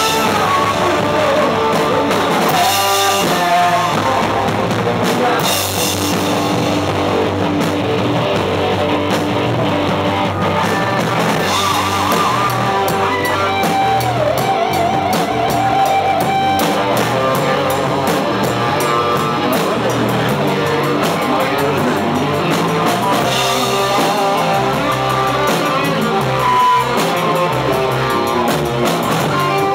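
Live rock band playing: electric guitar, bass guitar and drum kit, loud and steady throughout.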